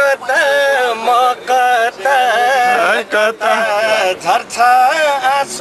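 A man singing a song, holding wavering, ornamented notes in short phrases with brief breaks between them.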